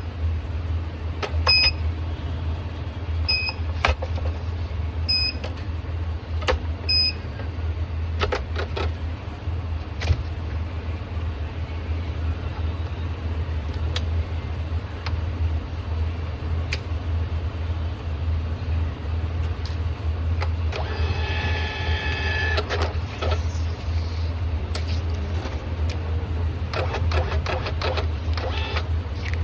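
Steady low hum throughout, with a thermal printer giving a short high beep about every two seconds, five times, over the first seven seconds. Scattered clicks follow, and a brief buzzing whir comes about two-thirds of the way through.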